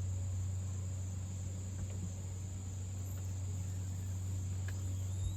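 Steady, continuous chorus of insects, with a steady low hum underneath.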